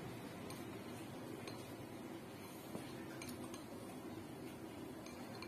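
A few faint, scattered clicks of chopsticks against a ceramic rice bowl, over a steady low background hum.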